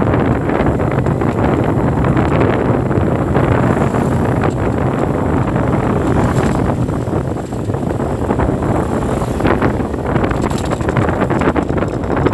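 City street traffic noise, overlaid by a steady heavy wind rumble on the microphone.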